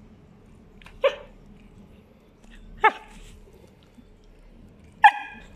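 Border collie barking three times: short, sharp barks about two seconds apart, the last the loudest.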